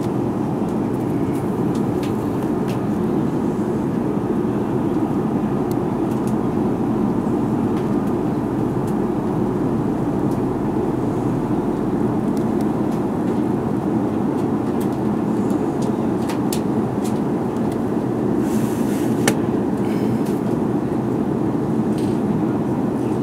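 Airliner cabin noise in flight: a steady, low rushing drone that does not change, with a few faint clicks now and then.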